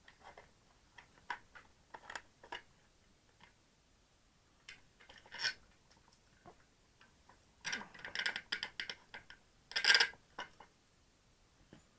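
Plastic battery-pack case being handled and opened by hand: scattered light clicks and knocks, a quick run of clicks about eight seconds in, and a sharper crack near ten seconds.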